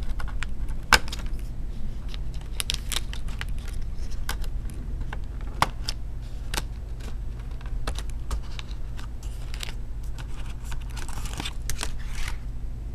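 Scattered small plastic clicks and taps from a screwdriver working a laptop keyboard's ribbon-cable connector and the keyboard being lifted out of the Acer Aspire 4520's case, the sharpest click about a second in and a brief rustle near the end, over a low steady hum.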